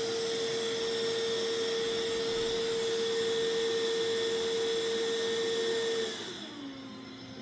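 Mova Z60 robot vacuum's suction fan running with a steady whine over a hiss, then winding down about six seconds in to a quieter, lower hum.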